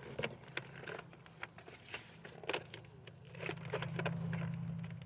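Light clicks and knocks of a plastic Nerf Ultra Three blaster being handled as its priming mechanism is worked, with a low steady hum swelling in the second half.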